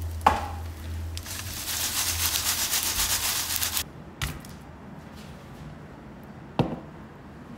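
Freshly fried, crispy pork-fat chicharon pieces tumbling and rattling together in a dense crackly rustle for a few seconds, which stops abruptly. Then two light knocks a couple of seconds apart.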